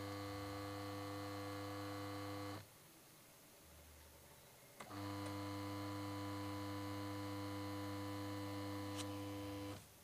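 Capacitor-run wash motor of a Sanyo twin-tub washing machine on a trial run, giving a steady electric hum. It runs for a couple of seconds, stops for about two seconds, then starts again with a click and runs until it stops shortly before the end.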